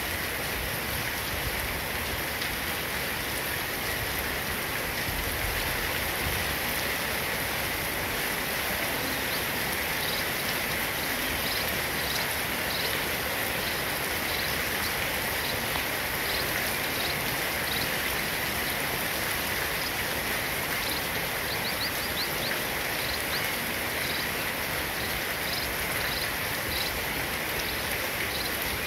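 Steady drizzle falling on brick paving and leafy plants, an even hiss of rain. Faint short high chirps repeat about once a second from about ten seconds in.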